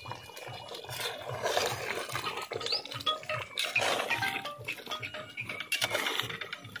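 A ladle scraping and stirring thick chicken curry in a cooking pot, heard over background music with a steady beat of about three thumps a second.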